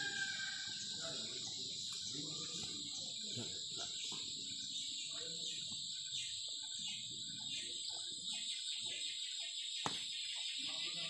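Steady high-pitched chorus of crickets or similar insects, with faint uneven low sounds beneath and one sharp click about ten seconds in.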